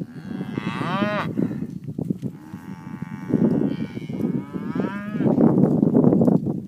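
Cattle mooing: a short call that rises and falls near the start, then a longer, steadier moo a couple of seconds in. Under them the hooves of the horse and cattle scuff over dry ground, loudest near the end.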